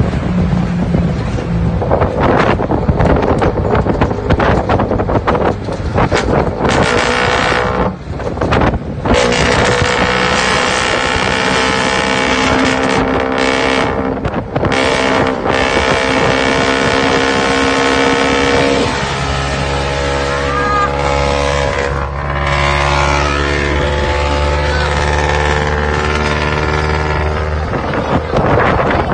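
Exhaust of an Isuzu C240 four-cylinder diesel engine through a four-divider 'lamigo' muffler. The engine note rises and falls in the first part, then settles into a steady, lower running about two-thirds of the way in.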